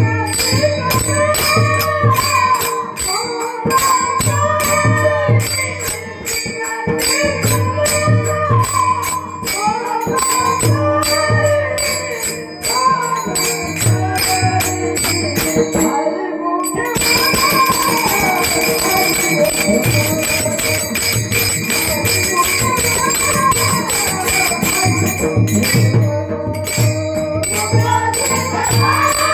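Devotional singing with a steady held drone, a regular drum beat and dense jingling percussion. The music breaks off briefly and starts again about 17 seconds in.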